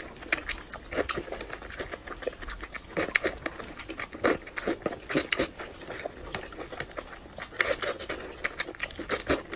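A person eating saucy squid and razor clams: chewing, sucking and lip-smacking, heard as many short, irregular clicks and smacks.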